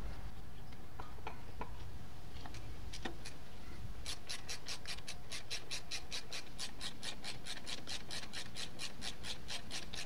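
Hand ratchet tightening the rear brake caliper mounting bolt on a Harley-Davidson Street Glide. A few scattered clicks come first, then from about four seconds in a steady run of ratchet clicks, about five a second.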